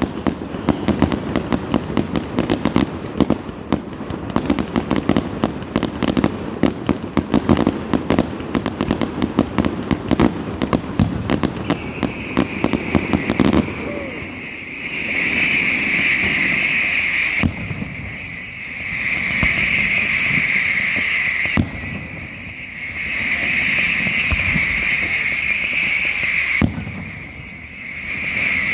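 Fireworks: a dense, rapid crackle of small bangs for the first half, then a shrill steady whistle in stretches of a few seconds, each broken by a single sharp bang.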